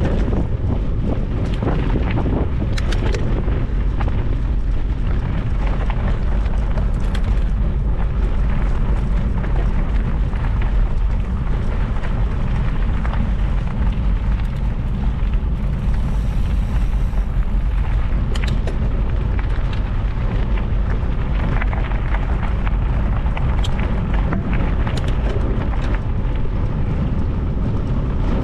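Wind buffeting the microphone: a steady low rumble with no clear pitch, with scattered faint clicks and rattles.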